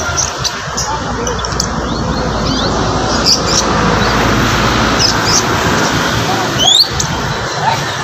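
Caged songbirds chirping and whistling in short high notes, with a rising whistle about two thirds of the way in, over the steady hubbub of a busy bird market.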